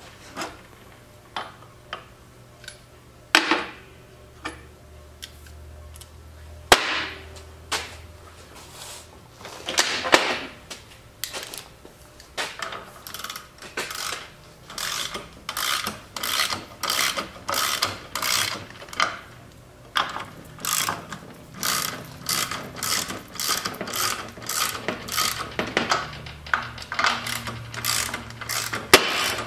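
Ratchet wrench clicking in short repeated strokes, a few scattered metal clicks at first, then a steady run of about two strokes a second, as the track tension adjuster bolts on a tracked snowblower's drive unit are wound in to tension the rubber tracks.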